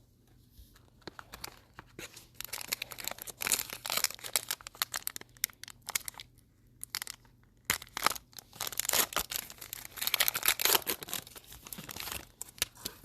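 A trading card pack wrapper being torn open and crinkled by hand. The crackling comes in two spells, the first starting about two seconds in and the second about eight seconds in.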